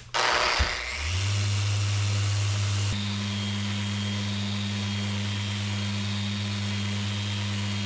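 Random orbital sander switched on, settling within about a second into a steady motor hum with the hiss of its pad sanding wood. The tone shifts slightly about three seconds in.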